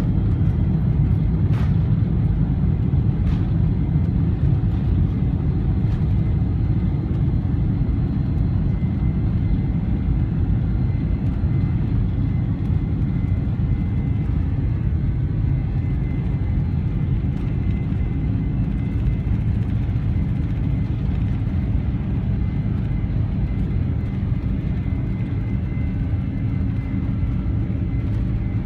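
Steady low rumble inside the cabin of a four-engined Boeing 747-400 taxiing, with a faint thin whine above it. Two sharp clicks sound about a second and a half and three seconds in.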